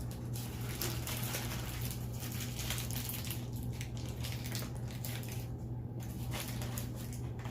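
Eating noises of someone chewing food close to the microphone: a run of irregular wet, crackly mouth sounds with short pauses, over a steady low hum.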